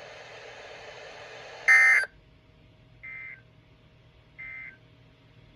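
Emergency Alert System end-of-message data bursts: three short, buzzy two-tone digital chirps about a second and a third apart, the first loud and the other two quieter. A steady hiss runs before the first burst and stops with it.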